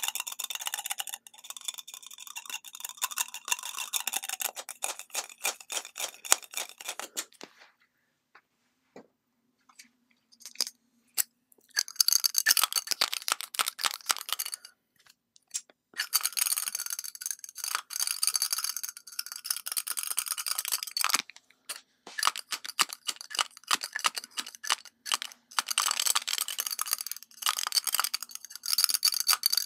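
Long fingernails tapping and scratching on metal and plastic lipstick tubes close to the microphone: rapid clicks and light metallic clinks in several bursts, with short pauses between.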